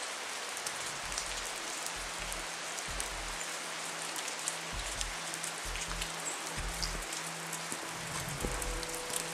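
Rain falling steadily, an even hiss dense with small drop ticks.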